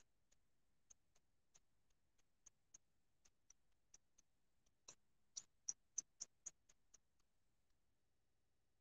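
Faint, irregular light taps of a small paint sponge dabbing paint onto a barn quilt board. About five seconds in they quicken into a run of louder taps, about three a second, then stop.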